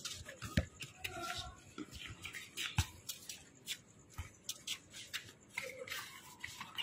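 Irregular thuds and scuffs from a futsal game: the ball being kicked and players' shoes on the hard court, with faint distant voices now and then. One of the thuds is louder and deeper, about three seconds in.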